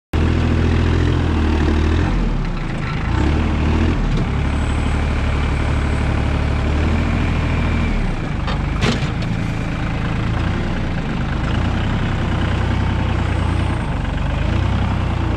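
Compact tractor's diesel engine running, heard close from the driver's seat, its note dropping and picking up a few times as the front loader lifts and carries a log. There is a single sharp clank about nine seconds in.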